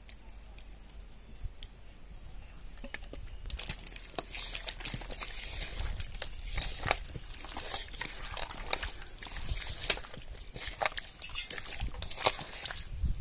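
A bare hand squishing and mixing raw marinated chicken pieces with a thick ground paste of fried onions, cashews and cardamom in a metal pot. Only faint taps at first, then wet squelching and slapping from about three and a half seconds in.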